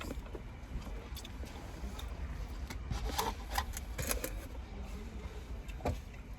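Eating noises from a fried-chicken meal: a few crisp crackles and rustles of food wrappers and crunching, mostly in the middle, over a low steady rumble.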